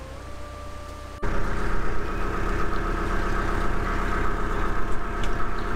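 Narrowboat's diesel engine idling steadily, coming in suddenly about a second in.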